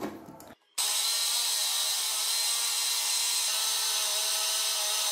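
Electric food chopper running steadily with a whining motor, its blades mincing raw chicken breast into keema. The motor starts suddenly just under a second in.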